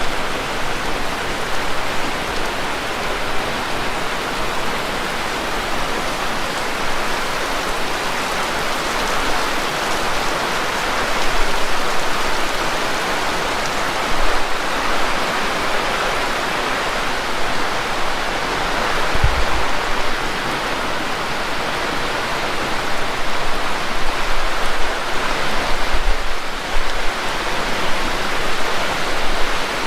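Heavy rain falling steadily, a dense hiss of drops. Two brief low bumps come about two-thirds of the way through and a few seconds later.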